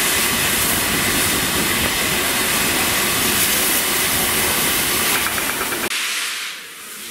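Steam hissing steadily and loudly from the Peppercorn A1 Pacific steam locomotive 60163 Tornado, escaping from its cylinder drain cocks and from the top of the boiler as it stands in the platform. The hiss drops away abruptly about six seconds in, then builds again more quietly.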